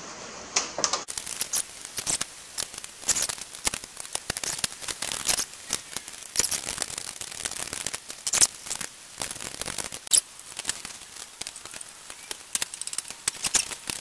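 Irregular clicks, scrapes and rattles of hands working the metal shield and plastic shroud of a Briggs & Stratton engine into place, as the shield's edges are tucked in around the engine.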